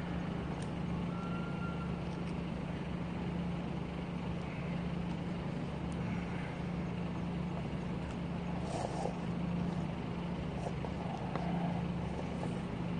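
Steady low mechanical hum, even and unbroken, with faint scattered clicks.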